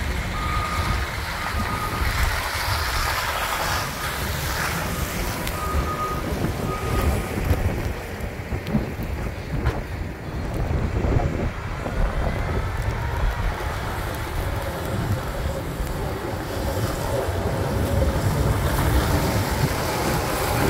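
Wind buffeting the microphone over the low rumble of a Cat wheel loader's diesel engine as it pushes snow with a box plow, the engine growing closer and louder near the end. A few short high beeps sound in the first several seconds.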